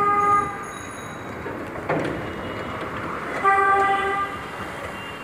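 Vehicle horn honking twice in street traffic: a steady half-second blast at the start and another, a little under a second long, about three and a half seconds in. A short noisy clatter falls between them, over a constant hum of traffic.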